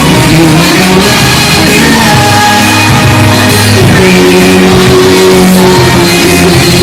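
Live pop music blasting from a concert PA, with sung vocals over a full band backing, recorded so close to the speakers that it is very loud and distorted.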